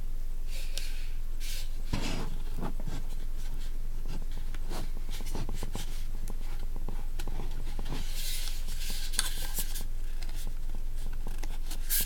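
Handling noise from a lamp speaker being handled by hand: scattered small taps and clicks and some rubbing, with a longer scratchy rustle about eight seconds in, over a steady low electrical hum.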